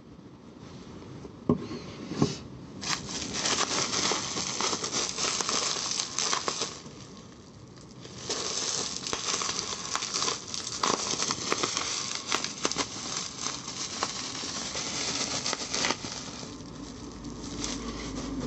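Packaging being unwrapped and handled: two knocks, then two long stretches of crinkling and rustling with many sharp clicks and crackles, with a short lull between them.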